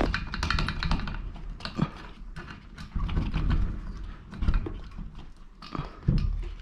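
Irregular clicking and knocking over a low steady hum.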